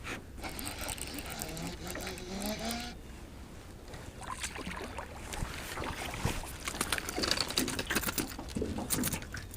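Irregular clicks and rustles of a hooked chain pickerel being reeled in and handled by hand, getting busier in the second half.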